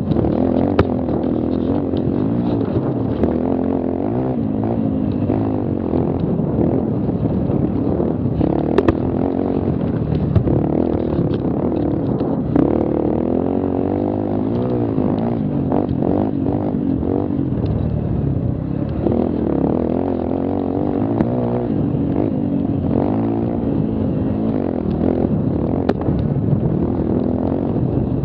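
Mini quad (youth ATV) engine running hard on a rough dirt trail, its pitch rising and falling with the throttle, with occasional knocks and rattles from the machine over bumps.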